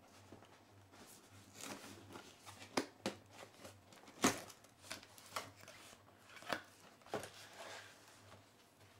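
Cardboard packaging being opened by hand: faint rustling and sliding of card with scattered sharp taps and scrapes, the loudest about four seconds in.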